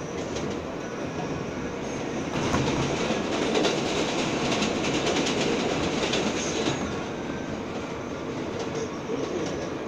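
R143 subway train running on elevated track, heard from inside the car. About two and a half seconds in, another subway train passes close alongside, making the noise louder and denser with clicking for about four seconds before it falls back.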